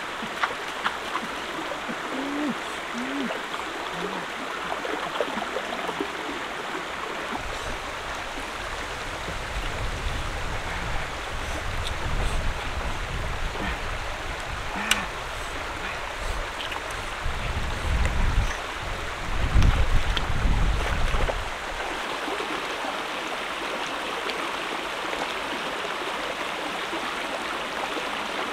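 Shallow stream running over rocks, a steady rush of water. Partway through, a low rumble comes in and out and is loudest near the middle.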